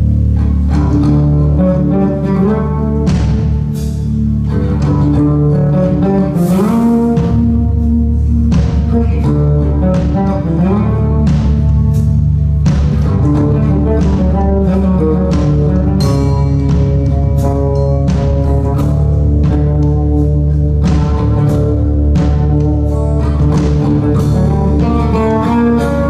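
Live band playing an instrumental passage: electric bass guitar and electric guitar over a Yamaha drum kit. There are sliding notes around six and ten seconds in, and frequent drum and cymbal hits.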